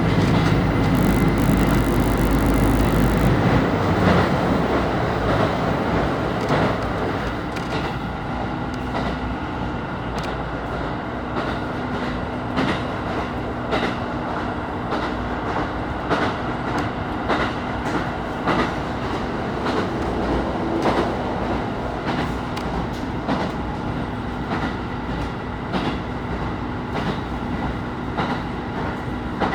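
KiHa 25 diesel railcar heard from inside the car while running: a heavy low engine rumble for the first few seconds eases to a steady running hum, with the wheels clicking rhythmically over rail joints throughout.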